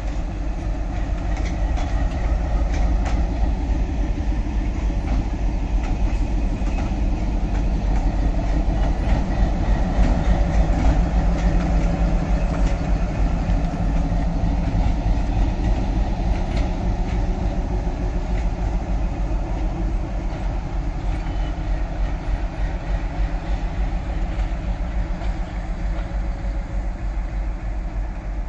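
WDM3 diesel locomotive's engine running steadily as it moves past hauling coaches, with wheels clicking over the rail joints. It is loudest about ten seconds in and fades slightly as it draws away.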